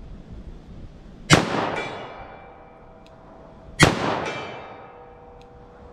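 .38 Special revolver fired twice in slow fire, about two and a half seconds apart, each sharp shot trailing off in a long echo with a faint ringing tone lingering after it.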